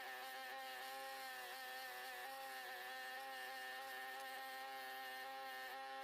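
Workshop bench machine's electric motor running with no work on it: a faint, steady whining hum.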